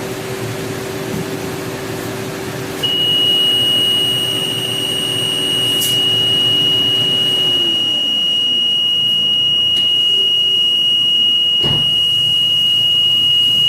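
A coolant exchange machine's completion alarm: a steady, continuous high beep that starts about three seconds in and keeps sounding, signalling that the coolant service is finished. Under it, a mechanical hum dies away with a falling pitch about eight seconds in.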